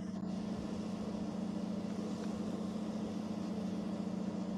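Steady low hum over a faint even hiss, with no distinct events: background noise with no clear action heard.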